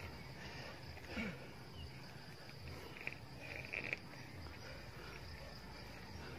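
Faint rural outdoor ambience: a steady, high insect drone, with a few short calls about a second in and again between three and four seconds in.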